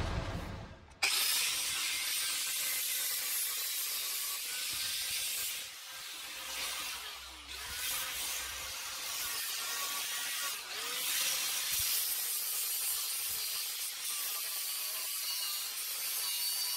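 Parkside PWS 125 E4 angle grinder with a sanding disc worked across a rusty steel bar: a steady rasping hiss of abrasion with small dips as the pressure changes. About a second in a lower sound fades and cuts off before the rasping starts.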